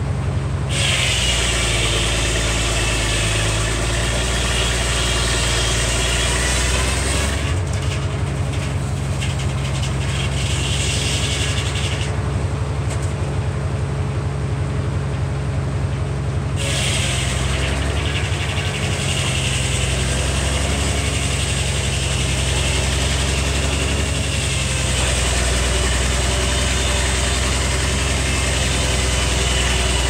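Minneapolis-Moline six-cylinder 605 cubic inch engine running steadily, driving a Frick sawmill's large circular blade as it rips boards from a hickory log. The blade's high cutting noise comes and goes with the passes, dropping out for a few seconds near the middle while the engine runs on.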